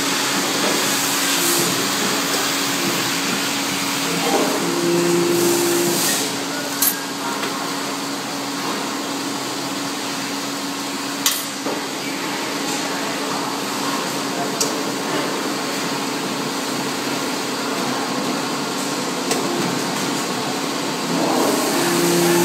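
Chain soldering and annealing tunnel furnace running: a steady hiss with a low hum underneath, and a few sharp clicks, twice standing out, from the wire being handled at the machine.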